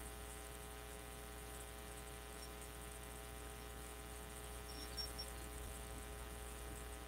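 Faint, steady electrical mains hum.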